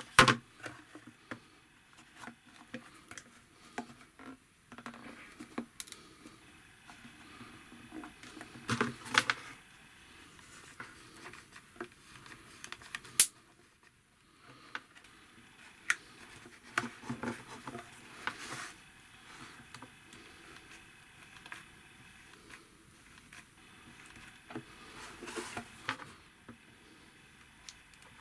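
Handling noise from a plastic bottle, a small pump and a hot glue gun being worked by hand: scattered clicks and knocks with short spells of rustling, and one sharp click about halfway through.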